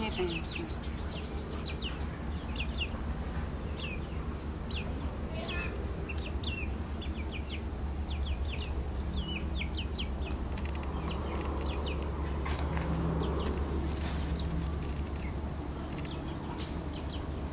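Steady high-pitched insect drone with many short, quick bird chirps scattered throughout, over a low rumble.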